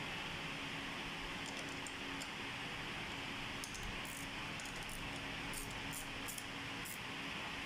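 Steady hiss and low hum, with scattered light metallic clicks from a small wrench tightening the cable bolt on a bicycle V-brake arm, most of them in the second half.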